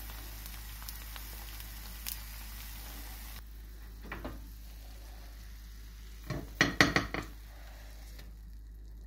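Fried eggs sizzling in a non-stick frying pan, a steady hiss that stops about three seconds in. A short knock follows, then about six to seven seconds in a quick run of sharp clinks, the loudest sounds, as the metal pan taps against a glass plate while the eggs slide off onto it.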